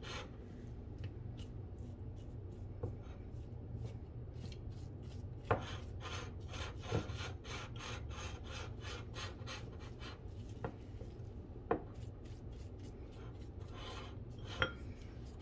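A utensil scraping and stirring a chopped garlic scape, lemon peel and salt mixture around a bowl in quick repeated strokes, a few a second, with a few sharp taps against the bowl.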